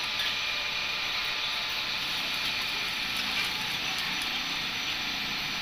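Aerosol spray paint can hissing steadily as paint is sprayed onto the flange of a stainless flexible exhaust pipe.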